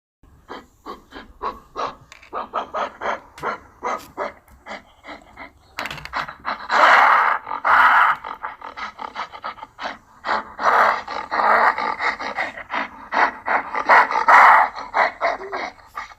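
Gorilla vocalizing: a rapid series of short panting grunts, about four a second, then two longer, louder rough calls, one starting about six seconds in and another about ten seconds in.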